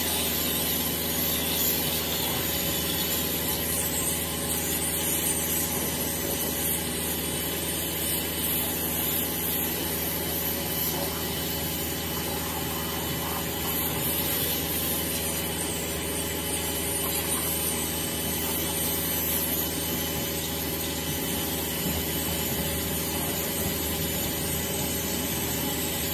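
Kärcher K3 electric pressure washer running steadily, its motor and pump humming under the hiss of the water jet spraying onto a car's body panels and wheel for the final rinse.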